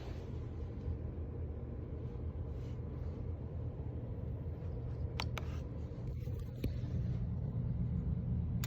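Steady low electrical hum and hiss from an audio mixer's output, with a few sharp clicks about five seconds in and again near six and a half seconds.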